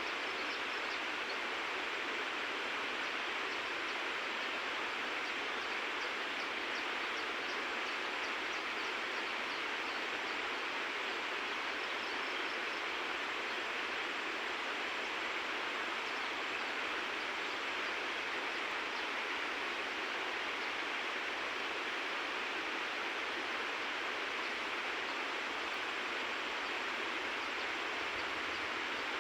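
River water rushing, a steady even hiss of flowing current.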